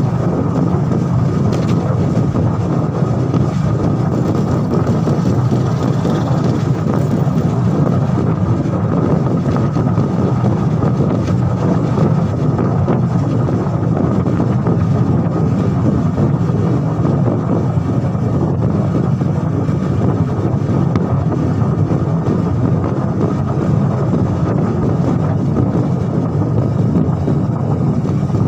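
Steady rush of wind on the microphone mixed with the engine and road noise of a vehicle cruising along at speed.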